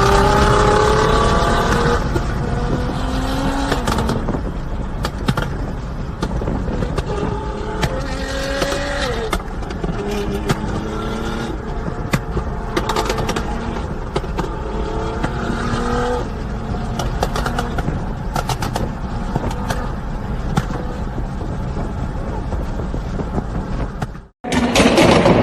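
Nissan GT-R R35's twin-turbo V6 engine and exhaust running loudly, its pitch rising and falling several times as the engine is revved.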